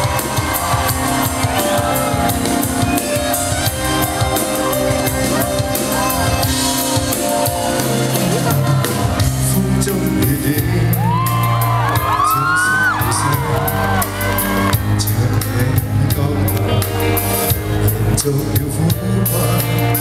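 Live pop band music played loud over a concert hall's sound system, with audience shouts and whoops rising above it, most around the middle.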